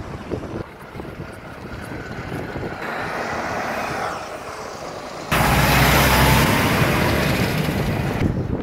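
Heavy livestock transport trucks driving past on the road, with a diesel engine note rising as one approaches; about five seconds in it turns suddenly much louder as a truck passes close, its engine rumble and tyre noise filling the sound.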